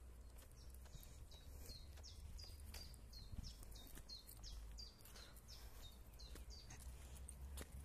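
A small songbird calling faintly, a quick run of short, high notes that each fall in pitch, repeated several times a second until near the end.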